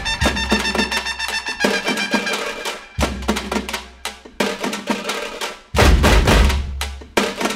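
Background music: a drum-and-percussion track with a steady beat, with heavy deep bass drum hits coming in about three-quarters of the way through.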